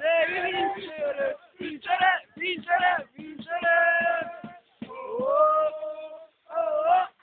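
Football supporters chanting a sung terrace chant, mostly male voices in short phrases with brief pauses between them.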